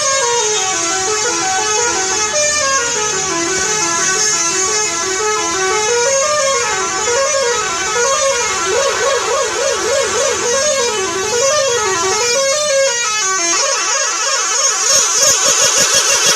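Bus 'telolet' multi-tone horn playing a continuous tune, its notes stepping up and down in waves. The notes alternate quickly in the middle, and near the end the tune changes to rapid, choppy notes.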